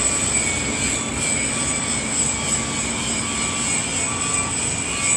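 Excavator engine running steadily, with a faint short tone repeating about once a second.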